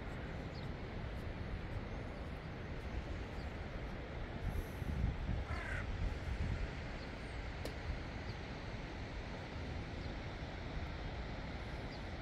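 Wind rumbling on the microphone throughout. About five and a half seconds in, a crow gives one short, harsh caw.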